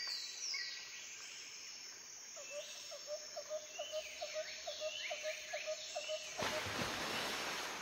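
Faint nature ambience: birds chirping in quick falling calls, with a run of short repeated notes, about three a second, through the middle, and a burst of hiss near the end.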